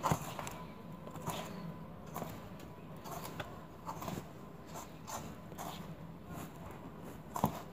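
Hand rubbing flour and melted dalda together in a steel bowl: faint soft rustling and scraping at irregular intervals, with a sharper click near the end.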